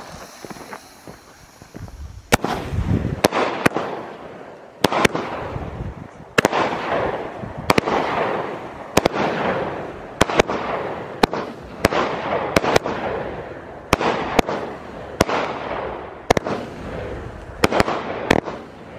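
A 16-shot consumer fireworks cake, Outlaw Pyro's Clout, firing its shots one after another, roughly one a second. Each shot is a sharp bang followed by a fading rush of noise.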